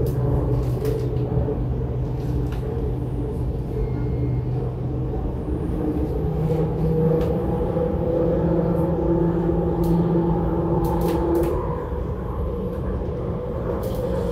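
MTR IKK-train (SP1900 electric multiple unit) running, heard from inside the car. There is a low rumble from the wheels and track, with steady motor tones that step up in pitch about five to six seconds in, then fade near the end.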